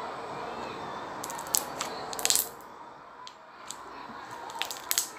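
Slime being squeezed and pressed by hand, giving sticky crackling pops in two short clusters of clicks, the first about a second and a half in, the second near the end.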